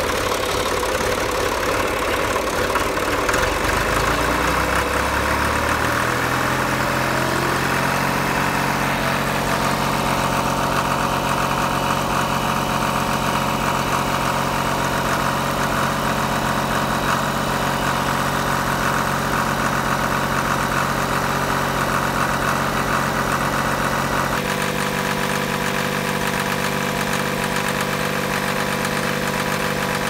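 John Deere 300B loader backhoe engine running and driving its freshly adjusted radial hydraulic pump while pump pressure is tested near 2,000 psi. The engine's pitch climbs over a few seconds as it revs up, then holds steady, with a sudden change in tone near the end.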